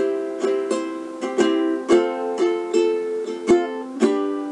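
Closing music on a plucked string instrument: a short melody of about a dozen picked notes. It ends about four seconds in on a chord that rings out and fades.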